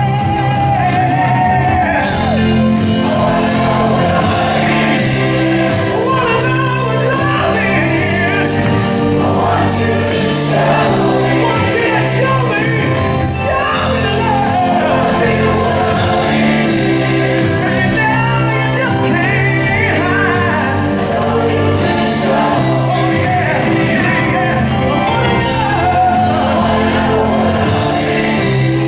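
Live rock band with keyboards, drums and guitar playing a song while a lead singer and a large choir of teenage girls sing together.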